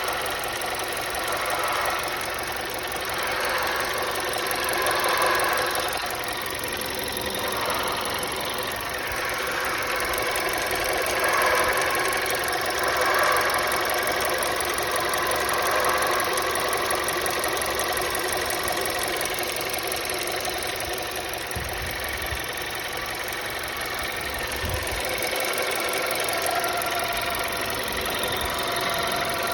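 Volkswagen Polo 1.2 TSI petrol engine running steadily, making a strange noise that the owner cannot identify.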